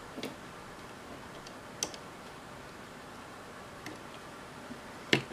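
Scattered sharp clicks and taps of small hard parts being handled, over a steady faint hiss; the loudest click comes near the end.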